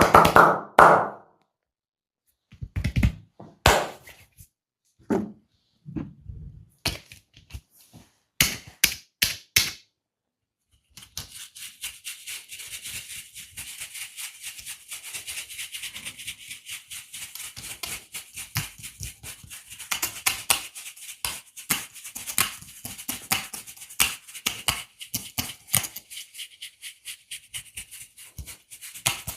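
Hands working on a person during a massage: several separate sharp thuds over the first few seconds, then, after a short pause, a fast, continuous run of crisp rubbing strokes with a rattling texture.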